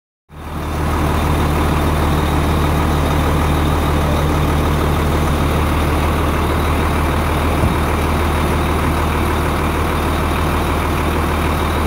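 Ford F-Series fire truck's engine idling steadily at a low, even pitch.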